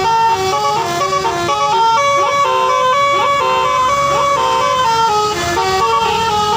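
Indonesian bus 'basuri' telolet horn playing a tune, its stepped notes changing every fraction of a second, with three quick upward slides in the middle.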